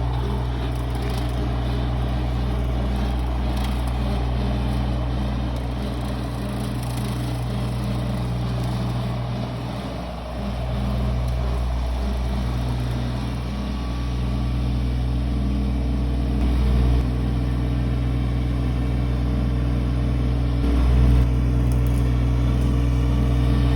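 Motor vehicle engine running steadily: a low drone with a few small dips and rises in level.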